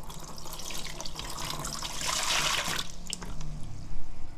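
Anchovy fish sauce poured from a glass measuring jug into a plastic container, splashing onto the liquid already in it. The pour builds, is loudest around two seconds in, and tails off before three seconds.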